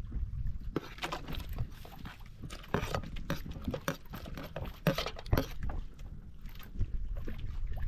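Irregular clinks and knocks of cooking utensils and dishes being handled, loudest about five seconds in, over a steady low rumble of wind.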